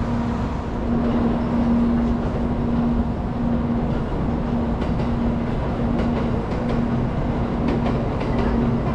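Railway station sound: a steady electric hum from a standing Shinkansen, with a train rolling across the yard tracks below. The wheels give faint clicks partway through.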